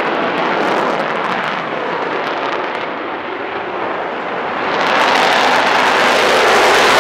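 McDonnell Douglas F-15E Strike Eagle's twin turbofans running at take-off power, a loud, continuous jet noise. It eases a little about three seconds in, then swells louder and brighter about five seconds in as the jet passes.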